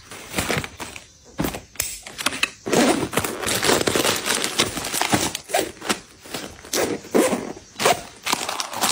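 Rustling and crinkling as a new handbag is unpacked: its dust bag and the tissue stuffing inside it are handled and pulled out in short, irregular bursts.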